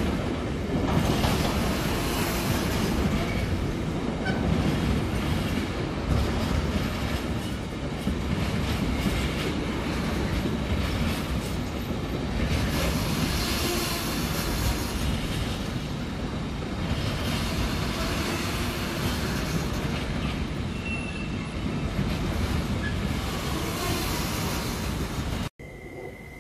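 A long freight train of container wagons rolling past: a steady loud rumble of steel wheels on rail, with a brief wheel squeal about three-quarters of the way through. Near the end the sound cuts off suddenly to a much quieter steady high hum.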